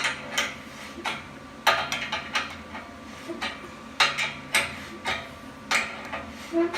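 Steel clanking and knocking from the welding table and its wheel assembly as it is handled. The sharp metal knocks come irregularly, two or three a second, each with a short ring.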